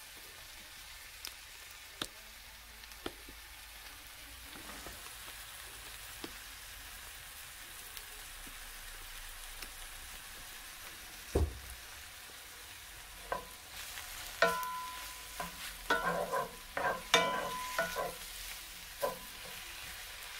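Oyster mushrooms frying in butter in a cast-iron skillet, with a steady sizzle. A few light clicks come in the first half and one thump just past the middle. In the second half a spatula scrapes and knocks against the pan in a run of stirring strokes.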